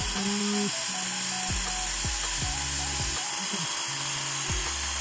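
Xiaomi Mi portable electric air compressor running steadily as it pumps up a bicycle tyre, early in the fill at about 4 to 5 psi.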